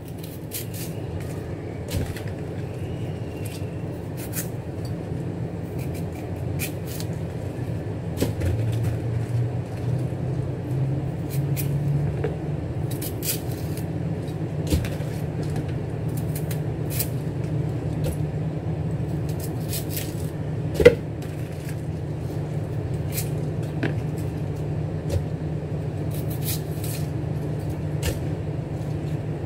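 Scattered sharp clicks and snaps of Shanghai bok choy stems being broken and trimmed with a knife, with one louder snap about 21 seconds in, over a steady low background rumble.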